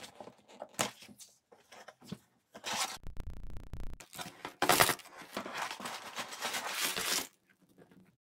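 Scissors snip the seal tabs of a cardboard Lego box, making a few sharp clicks. This is followed by several seconds of tearing and rustling as the box is opened and the plastic parts bags inside are handled, with the loudest crinkle about halfway through.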